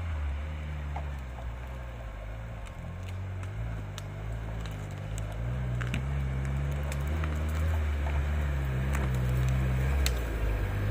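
Off-road vehicle's engine running at low revs that change in steps, growing louder in the second half, with scattered sharp clicks and knocks over it.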